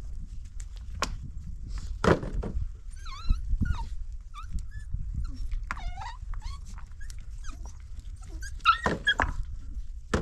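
A dog whining in short, wavering, high cries, with a few sharp knocks among them.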